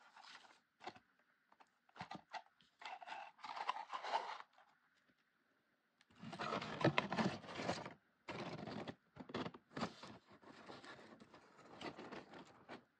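Cardstock paper flowers and a paper bouquet holder being handled and pushed together, giving irregular bursts of paper rustling and scraping with short pauses between them.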